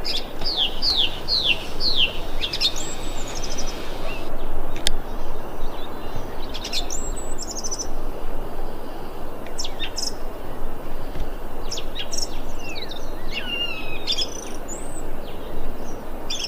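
A thrush singing in separate phrases of whistled notes, the first a run of about five quick falling notes, over a steady background hiss.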